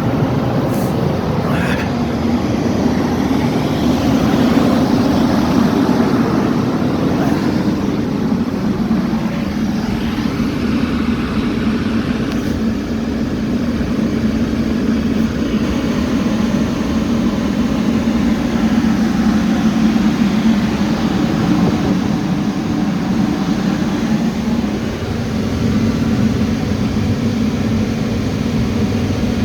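Volvo EC300E excavator's diesel engine running steadily, its level swelling and easing a few times, after repair of the exhaust aftertreatment fault that had limited its power.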